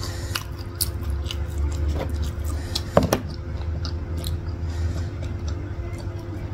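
Close-miked chewing and mouth sounds of eating corn dogs, with short wet clicks throughout and one sharp knock about three seconds in.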